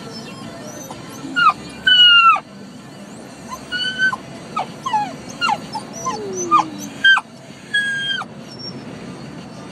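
Dog whining and whimpering in a car, a string of short, high whines with a couple of longer falling ones, over a steady low road rumble. The uploader reads the whining as the dog pleading to be let out.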